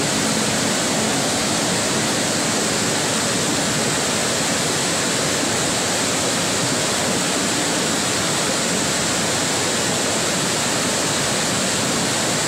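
Muddy flash-flood torrent rushing down a street: a loud, steady rush of water.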